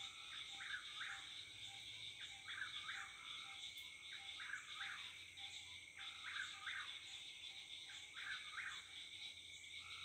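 A nightjar singing its repeated three-note whip-poor-will song, five phrases about two seconds apart, over a steady high-pitched chorus of frogs and insects.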